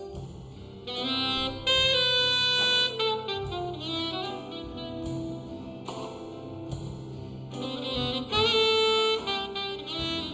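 Big band jazz playing, led by saxophones and brass, with loud held ensemble chords about two seconds in and again near the end.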